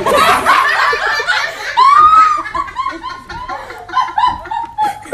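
Loud human laughter: a run of short, repeated laughs, with a high-pitched peak about two seconds in.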